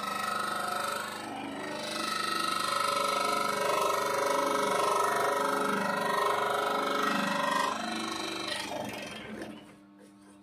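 Electric variable-speed scroll saw running, its reciprocating blade cutting an acrylic medal blank. About eight seconds in the saw is switched off and winds down to a stop.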